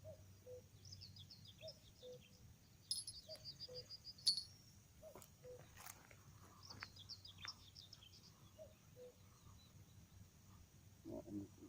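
Birds singing in the open: high chirps and trills from small songbirds over a low two-note call that repeats about every second and a half. A single sharp click about four seconds in is the loudest moment.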